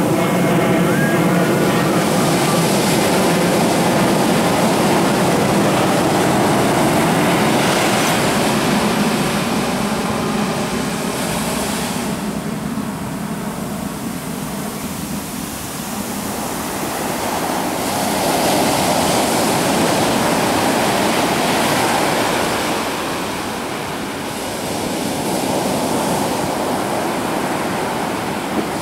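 Ocean surf breaking and washing up the shore, a continuous roar that swells and eases in three or so surges, with lulls about twelve seconds in and again near twenty-four seconds.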